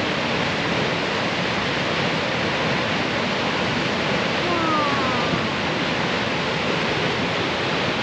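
A waterfall: a steady, unbroken rush of falling water, with faint voices in the distance about halfway through.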